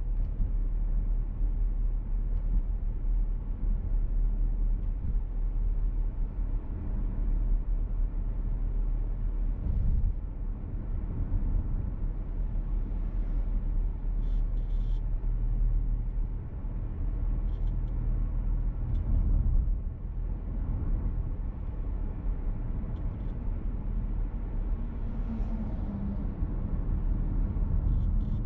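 Cabin noise of a VW T-Roc petrol car being driven: a steady low rumble of engine and tyres on the road, with a few short high-pitched sounds along the way.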